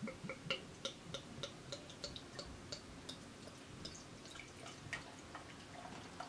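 Ale glugging out of a 500 ml glass bottle into a tilted glass, a steady run of about three glugs a second that grows fainter after about three seconds.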